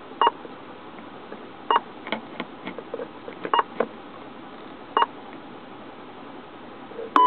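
Keypad beeps from a GE Orion M/A-COM hand-held radio controller as its buttons are pressed: four short beeps spaced about a second and a half apart, with fainter clicks between them. A longer, louder tone sounds right at the end.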